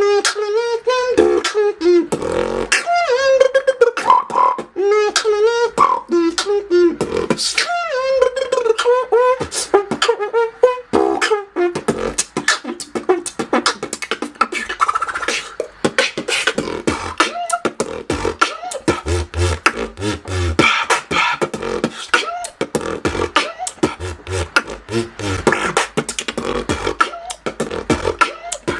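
Solo human beatboxing. For the first ten seconds or so a wavering vocal melody runs over sharp mouth-made drum clicks, then the pattern turns to fast, dense mouth percussion with deep bass hits.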